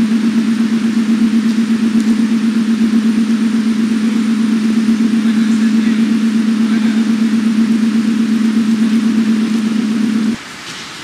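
A loud, steady low hum that pulses about seven times a second, starting abruptly and cutting off suddenly near the end.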